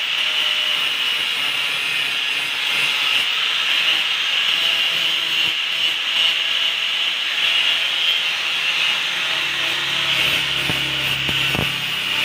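Handheld angle grinder grinding the steel blade of an old machete, a steady high-pitched grinding that does not let up.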